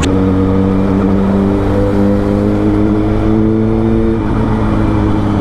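Suzuki GSX-R1000 inline-four engine running at a steady pitch under light throttle as the bike gathers speed, heard from the rider's seat with road noise beneath.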